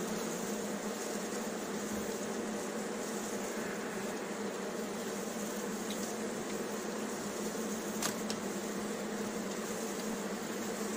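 Honeybee colony humming steadily from an opened hive, with a single sharp click about eight seconds in.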